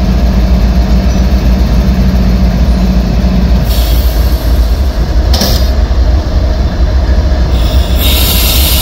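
CSX freight train rolling slowly past: its diesel locomotives and cars make a heavy, steady rumble, with short high-pitched wheel squeals a few times.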